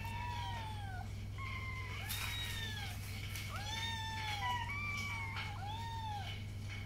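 Young kittens mewing over and over in high, thin calls that rise and fall, about six in all, some overlapping at different pitches. A steady low hum runs underneath.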